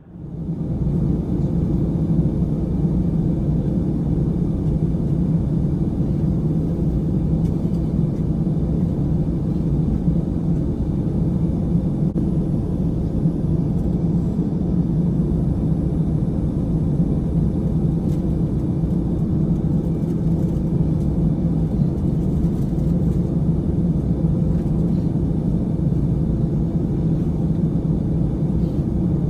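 Steady low rumbling drone with a constant hum inside a jet airliner's cabin as it sits on the ground, fading in at the start.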